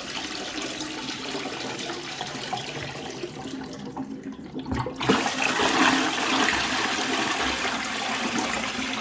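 Water poured from a bucket into a toilet bowl to flush it by hand, rushing and splashing. There is a brief lull about four seconds in, then louder pouring from about five seconds in.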